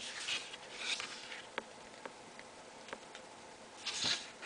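Paper pages of an illustrated booklet rustling as they are turned by hand, with a few faint ticks; a second page-turn swish comes just before four seconds in.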